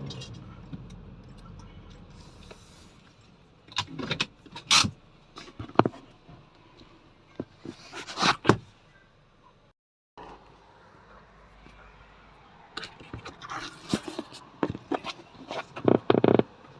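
Scattered clicks, knocks and scrapes of handling around a car. A low hum fades over the first couple of seconds, and the sound drops out completely for a moment about ten seconds in.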